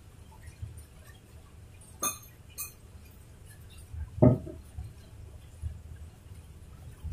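Low, steady rumble of rain and passing road traffic, broken by a few close clinks and knocks: two sharp clinks about two seconds in, then a louder knock with a short ring a little past four seconds.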